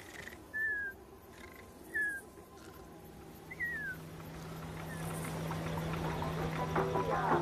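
Three short, high cries that fall in pitch, each a second or more apart: a cartoon animal's vocal sound effect. A low steady hum and music then fade in and grow louder over the last few seconds.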